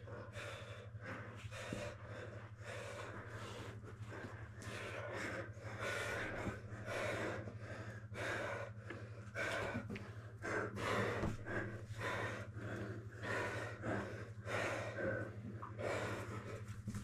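Heavy, fast breathing and gasping of grapplers exerting themselves during a jiu-jitsu roll, with a steady low hum under it.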